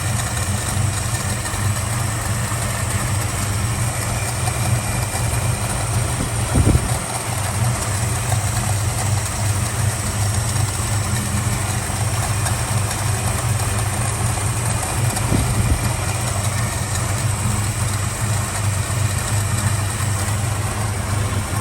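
Valiant Charger engine idling steadily after an oil change, behaving itself. A single brief thump about seven seconds in is the loudest moment, and a fainter one comes later.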